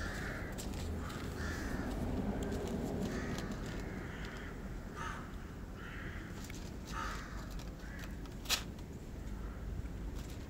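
Crows cawing repeatedly, harsh calls about once a second, over the close crunching of a cat chewing dry kibble, with one sharp click near the end.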